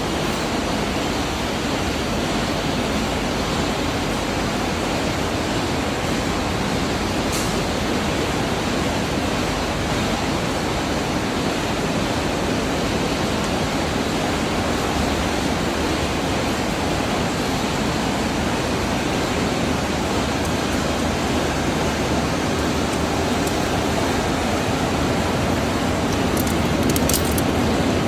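Steady, even rushing noise of a continuous mesh belt furnace line running, with a few faint ticks near the end.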